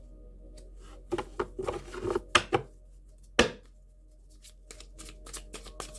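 Tarot cards being handled and shuffled: a flurry of card slaps and flicks about a second in, one sharp snap about three and a half seconds in, then a quick run of light riffling ticks near the end.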